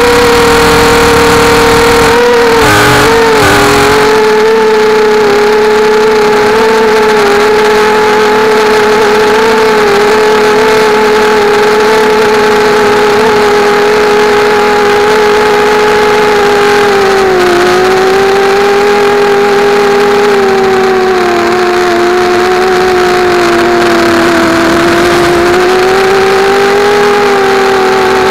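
Mini quadcopter's brushless motors and propellers whining steadily, the pitch wavering and dipping as the throttle changes, with a short rumble about three seconds in.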